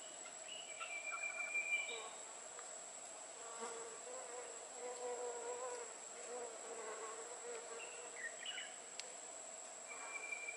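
A flying insect, a fly or bee, buzzing close by with a wavering pitch through the middle, over a steady high-pitched insect drone. A few short, high chirps come near the start and again near the end.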